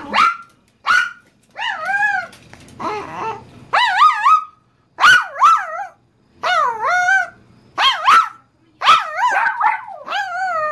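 Small dog barking and whining in a long string of short, high calls that bend up and down in pitch, about one a second with brief gaps: attention-seeking vocalizing, which the owner puts down to jealousy because her back is turned to the dog.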